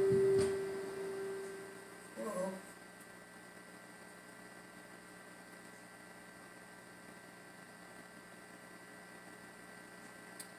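Faint steady electrical hum from an amplified microphone and sound system. A held tone fades away over the first couple of seconds, with a brief murmur of voice about two seconds in.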